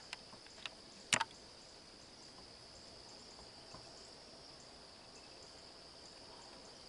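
Steady high-pitched chorus of night insects, with a few sharp clicks in the first second and a louder double click about a second in.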